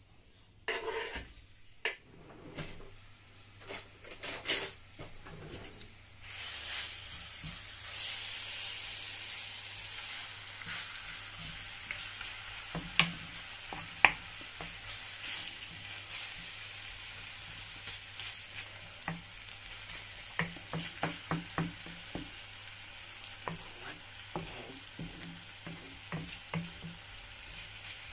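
Diced raw chicken sizzling in oil in a hot non-stick frying pan, stirred with a wooden spatula that clicks and scrapes against the pan. The first few seconds are knocks and scrapes as the chicken is pushed off a wooden chopping board into the pan. The steady sizzle comes up about six seconds in.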